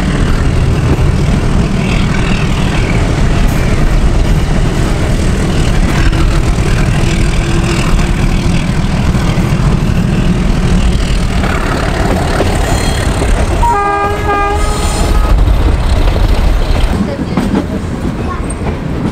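Meter-gauge passenger train running, heard from the side of a moving coach: a steady rumble and clatter of wheels on the track. About two-thirds of the way in the diesel locomotive's horn sounds briefly, and the rumble eases a little near the end.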